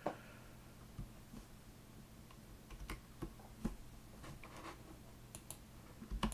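Computer keyboard keystrokes, a dozen or so scattered, irregular taps, faint, over a faint steady low hum.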